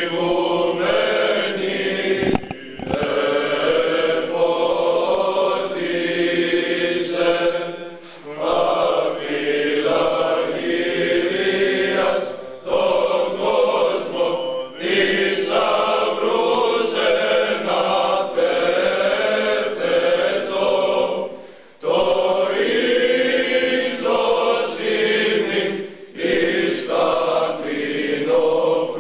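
Greek Orthodox Byzantine chant sung by a group of voices, in long phrases separated by short pauses.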